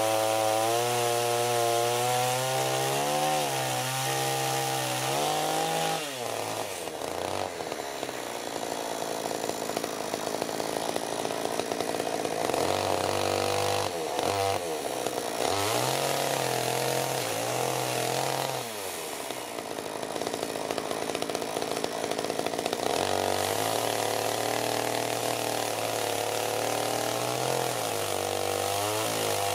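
Chainsaw engine running at high revs while ripping a log in a homemade chainsaw mill. The engine note dips and recovers several times as the chain loads up in the cut, most deeply about six and nineteen seconds in.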